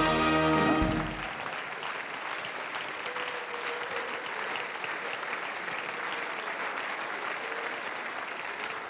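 Audience applauding steadily in a large hall. A short held musical chord sounds over the clapping and stops about a second in.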